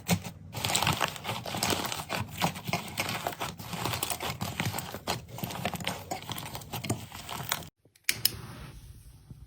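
Slime being squeezed and pressed by hand, making a dense run of small crackling clicks. It cuts off near the end, and a quieter handling sound follows.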